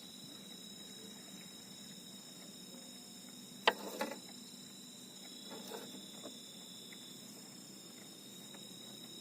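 Night insects, crickets, keeping up a steady high-pitched chorus of several held tones. A single sharp click, the loudest sound, comes a little over a third of the way in, followed by a few softer knocks.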